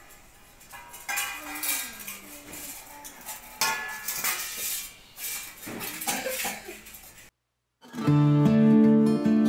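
Stainless steel plates and a steel serving bowl clanking and ringing as rice is served out. After a brief dead silence about three-quarters of the way in, strummed acoustic guitar music starts.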